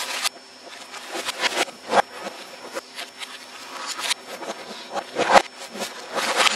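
Computer keyboard being typed on and hit, making irregular clacks and knocks with a faint steady hum underneath. The hardest knock comes a little past five seconds in.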